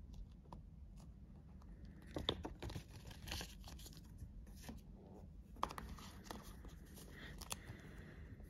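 Stiff paper instruction leaflet and booklet cards from an AirPods Pro box being unfolded and shuffled by hand: crinkling paper rustles with sharp snaps. It comes in two spells, about two seconds in and again from about five and a half seconds.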